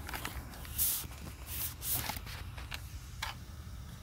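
Handling noise from the drone and its controller being picked up and moved: a run of short rustles, scrapes and knocks, about seven in three seconds, over a low steady hum.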